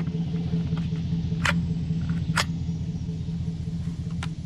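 A steady low hum, with sharp clicks about a second and a half in, about two and a half seconds in, and again near the end.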